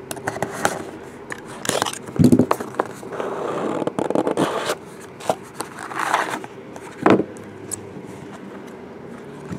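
Cardboard trading-card box and plastic wrapping being handled while the box is opened: scraping and crackling rustles with several sharp knocks and clicks.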